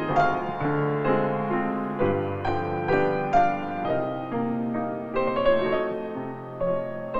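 Background piano music, a melody of struck notes and chords about twice a second.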